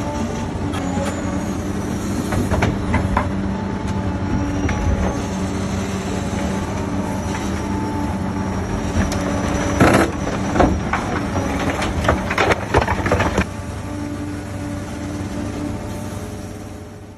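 Large excavator's diesel engine and hydraulics running steadily under load while its hydraulic demolition crusher jaws work a concrete pile, with several sharp cracks of breaking concrete about ten to thirteen seconds in. The sound fades out near the end.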